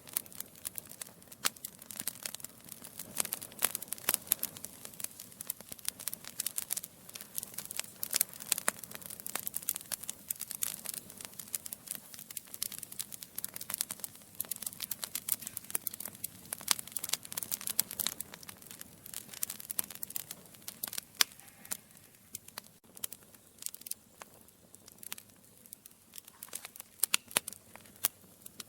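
Wood fire of burning logs crackling, with many sharp irregular pops and snaps over a soft low hiss; the crackling thins out a little after about twenty seconds.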